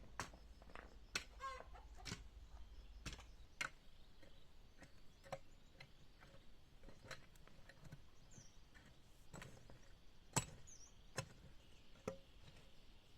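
Scattered sharp clicks and snaps at irregular intervals, with a chicken clucking briefly about a second in.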